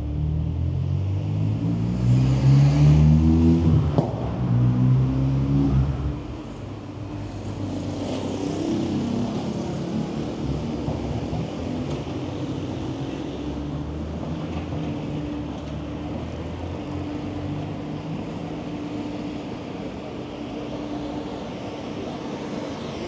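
A motor vehicle's engine accelerating close by, its pitch climbing, dropping at a gear change and climbing again before it fades. Steady street traffic follows.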